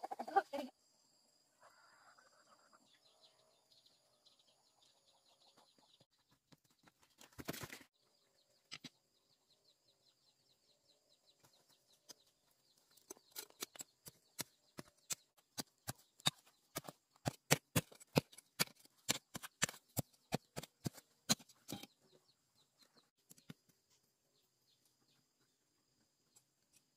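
Repeated sharp strikes of a digging tool into stony soil, about two to three a second for roughly ten seconds, as wild tubers are dug up. Before that there is faint chicken clucking, and a steady high insect whine runs underneath.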